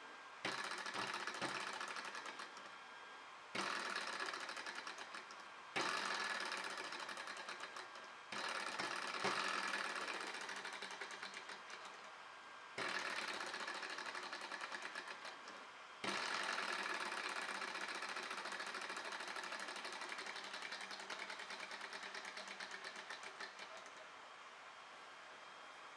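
A small desktop hot-air Stirling engine, heated by a tea-light candle, runs with a fast, clattering tick from its piston and flywheel linkage. The sound comes in six runs of a few seconds each. Each run starts abruptly and fades, and the last one stops near the end.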